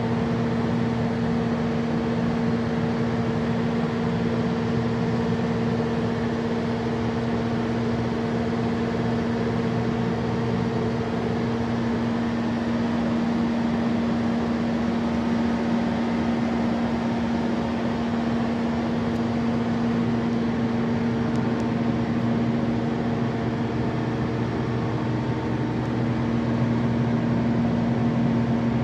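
Mitsubishi S12H diesel engine driving a Kohler generator, running steadily at constant speed, with its radiator fan: a steady mechanical hum with a strong unchanging low tone, growing slightly louder near the end.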